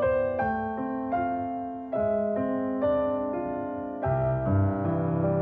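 Slow background piano music, note changes every half second or so; deeper bass notes and a fuller chord come in about four seconds in.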